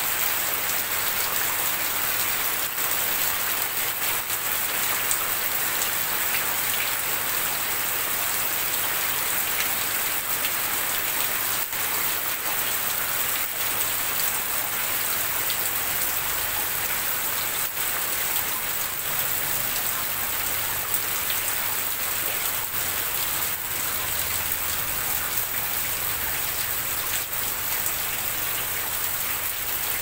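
Steady rain falling on a corrugated zinc roof sheet: a dense, even hiss of rain with single drops ticking sharply on the metal.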